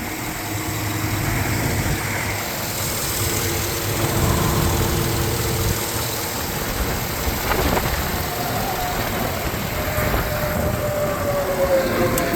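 2007 Chevrolet Avalanche's 5.3-litre Vortec V8 idling steadily.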